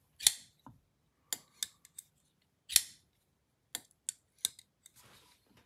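American Bladeworks Model 1 button lock folding knife being fired open and closed by hand: about a dozen sharp metallic clicks at uneven spacing as the blade swings and locks, the loudest about a quarter second in and near three seconds in.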